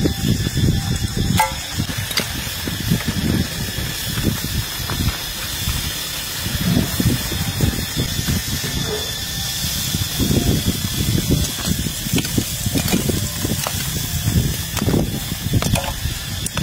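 Whole lizards sizzling on a charcoal grill, a steady hiss with scattered small crackles over an uneven low rumble.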